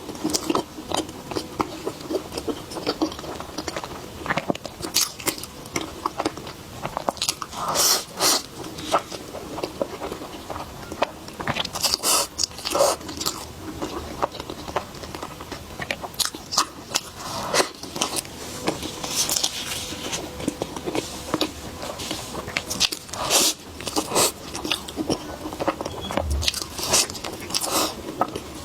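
Close-miked eating: a person biting into and chewing a dessert, with crunches and mouth clicks coming at irregular intervals.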